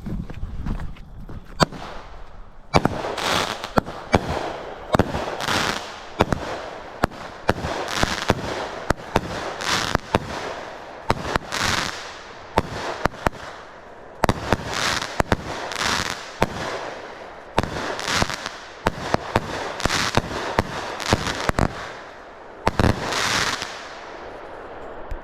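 Fox Fireworks Gold Vein 200-gram cake firing its 25 shots: sharp launch thumps about once a second, each followed by a hissing, crackling burst, stopping a little before the end.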